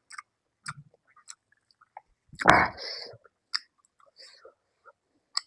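A person chewing food close to the microphone: scattered wet clicks and smacks of the mouth, with one louder, short noise about halfway through.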